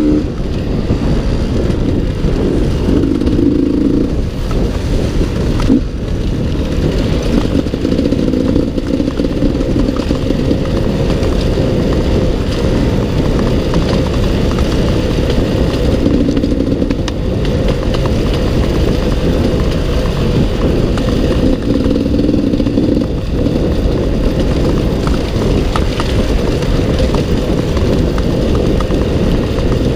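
Off-road dirt bike engine running under a rider's throttle on a rough trail, its note rising and falling as the throttle is opened and closed, heard close up from the bike itself.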